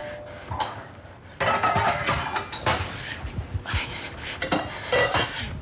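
Metal pots, pans and lids clanking and clinking on a kitchen stovetop as they are handled. The clatter grows louder about a second and a half in, with a number of irregular sharp knocks.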